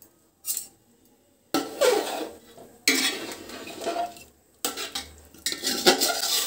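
A metal spoon stirring and scraping in a cooking pot, in several clattering bouts of a second or two each.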